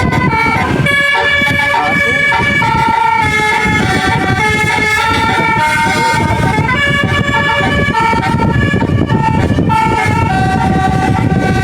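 Bus telolet horn, a set of musical air horns, playing a tune of held notes that step from pitch to pitch, over steady low rumble.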